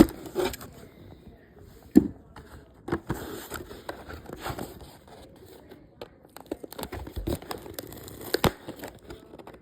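Toy packaging being handled: crinkling plastic and cardboard, with several sharp clicks and knocks.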